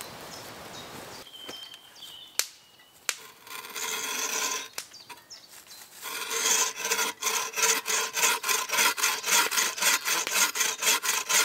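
Wooden frame bow saw cutting through a log with fast, even back-and-forth strokes. The strokes start about halfway in, after a campfire crackling and a couple of sharp knocks.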